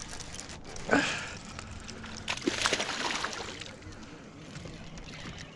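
A hooked bass splashing at the water's surface beside the boat, with a short burst of splashing about two and a half seconds in.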